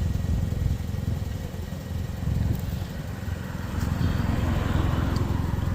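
An engine or motor running steadily with a low, fast-pulsing rumble. A faint hissing or rustling sound rises over it about four seconds in.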